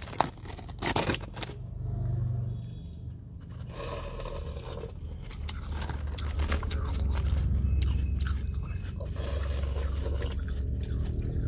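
Shaved ice being bitten and chewed, with irregular crunching and scraping, over a steady low hum.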